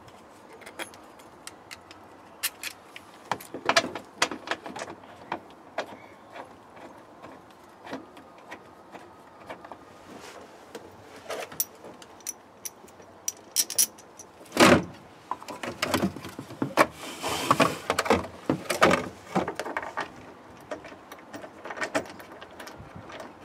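Plastic interior trim panel and seat belt being handled and fitted into a car's rear quarter: scattered clicks, knocks and rustles, with one loud knock about two thirds of the way through and a run of clicks and rustling just after it.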